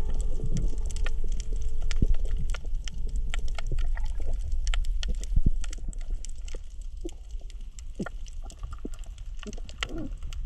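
Underwater coral-reef crackle: a dense, irregular scatter of sharp clicks and pops over a low rumble of moving water. It is louder in the first half, with one stronger pop about halfway through. The uploader has heard that this crackling is the coral 'breathing', with some of it coral breaking as fish feed on it.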